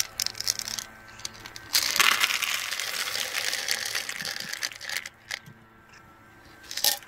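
Dry cat kibble poured from a plastic container into a plastic tray, rattling loudly for about three seconds starting just under two seconds in, with scattered clicks of pellets and handling before and after.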